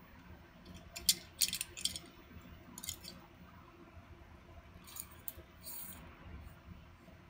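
Hard black plastic parts of a wifi antenna stand clicking and tapping against each other as they are handled and pushed together. There is a cluster of sharp clicks about a second in, another near three seconds, and a few more around five to six seconds.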